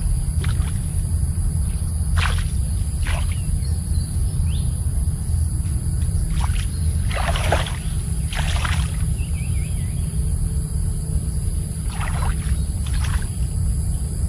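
Water splashing and sloshing in short bursts, about eight times, as a gill net is hauled up out of a flooded rice field, over a steady low rumble and a thin high hiss.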